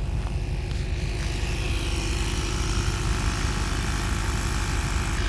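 Steady low rumble, with a broad hiss that swells about two seconds in.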